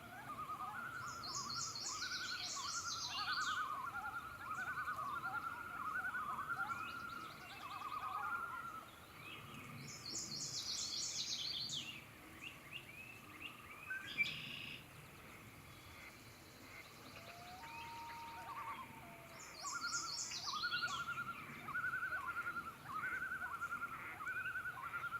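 Wild birds calling at a lake: a run of quick repeated mid-pitched notes through the first several seconds and again near the end, with a high, fast trilling song three times.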